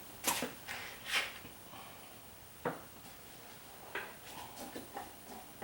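A few faint, scattered clicks and knocks of parts being handled, with brief rustling strokes in the first second or so and a sharper click a little before the middle.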